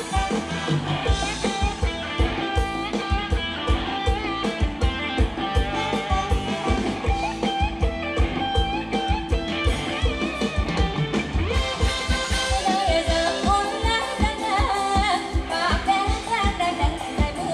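Live band playing upbeat Thai ramwong dance music: a steady kick-drum beat and electric guitar, with singing.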